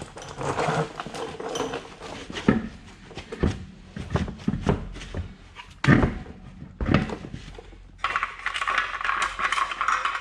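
Hand tools and metal parts knocking and clicking irregularly, with heavier knocks about two and a half, six and seven seconds in, then a steady rasping noise for the last two seconds.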